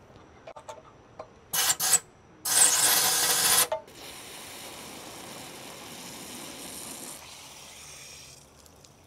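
A spray of fluid forced through the outboard's cooling-water passage to clear it: a short burst, then a loud spray about two and a half seconds in that drops to a steady, quieter hiss for a few seconds and tails off. The passage proves clear.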